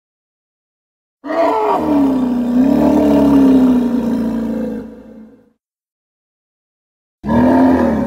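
Elephant roar sound effect: one long pitched roar lasting about four seconds that wavers slightly in pitch and fades out. After a gap of dead silence a second roar starts near the end.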